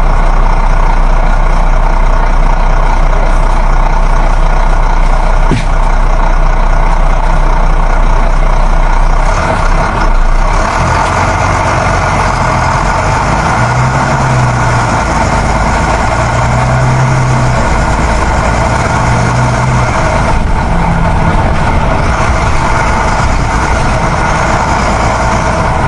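Heavy truck engine running steadily, with a few short low rises in its note in the second half.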